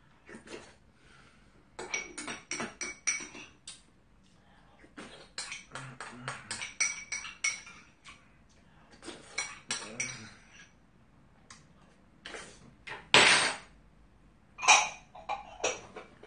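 Metal spoon clinking and scraping against a small ceramic bowl in quick runs of taps as the last of the porridge is scooped out, with a few louder knocks near the end.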